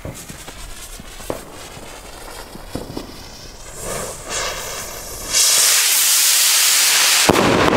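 Weco Targa "Mont Blanc" firework rocket: the lit fuse crackles, then about four seconds in the motor ignites with a rising hiss that becomes a loud steady hiss as the rocket climbs. Near the end comes a loud bang as it bursts.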